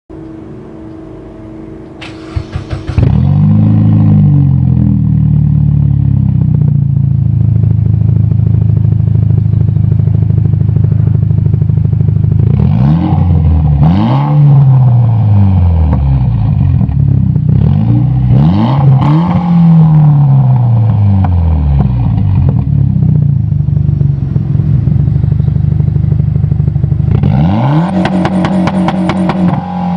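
Mitsubishi Lancer Evolution X's turbocharged 2.0-litre four-cylinder heard through a 3-inch stainless catback exhaust with twin resonators: it fires up about three seconds in and settles to a steady idle. Midway it is blipped in several sharp revs to about 4,000 rpm, each rising and falling back, and near the end it is held on the launch-control limiter in a rapid stutter.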